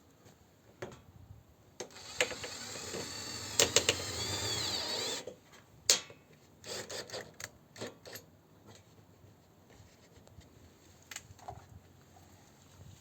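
Cordless drill-driver running for about three seconds, its pitch rising and falling, with a few sharp clicks: driving a screw through the nailing strip of a vinyl siding panel. Scattered knocks and clicks follow.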